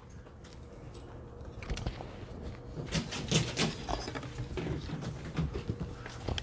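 Scattered clicks, knocks and rustling as a clear plastic ballot box is handled and opened, with a louder run of clicks about three seconds in.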